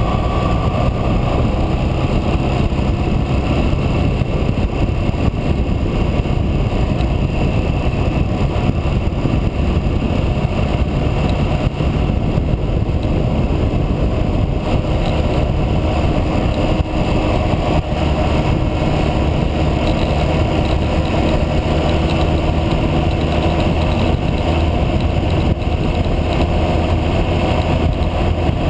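Motorcycle engine running steadily at road speed under a loud, even rush of wind and road noise.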